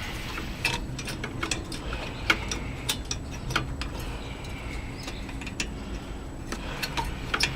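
Hand work on a lawn mower engine's carburetor and linkage: irregular light clicks and taps as parts are fitted and worked back and forth.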